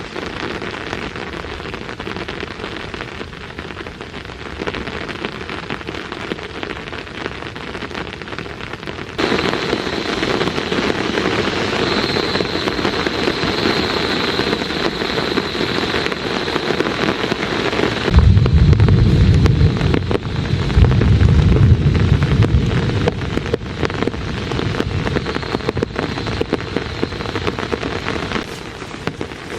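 Steady rain falling and pattering on surfaces. The rain grows abruptly louder about a third of the way in and eases again near the end. Two heavy low rumbles come a little past the middle.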